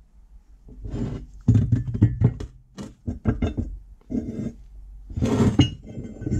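Rusty cast-iron meat grinder being handled on a wooden bench, making a run of metal knocks and clinks as the body is turned and the auger shaft is grasped in its barrel. A longer grating scrape comes about five seconds in.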